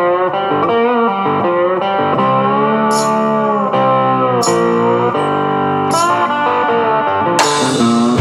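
Background music led by guitar, with a sharp hit recurring about every second and a half.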